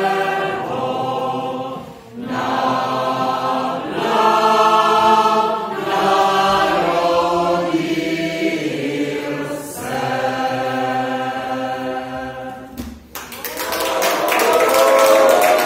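Mixed choir singing in phrases separated by short breaths. The song ends about 13 seconds in, and clapping and cheering voices follow.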